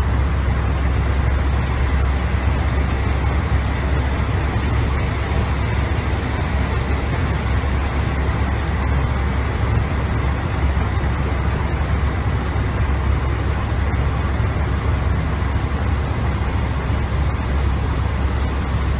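Steady rushing flight-deck noise of an airliner in cruise: airflow over the fuselage and engine hum, heaviest in the low end and unchanging throughout.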